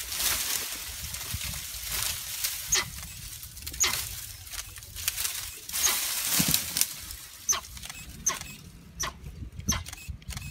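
Branches and dry brush rustling, cracking and snapping as a tiger scrambles down out of a tree through the undergrowth, in irregular bursts, with a few short high chirps between them.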